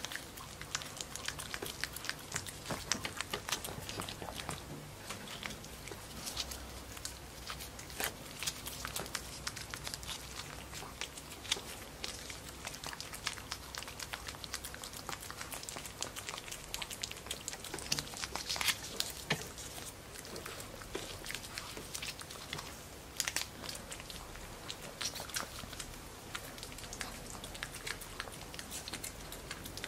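Pekingese puppy licking Churu paste from a squeeze tube: a quick, irregular run of wet lapping and smacking clicks.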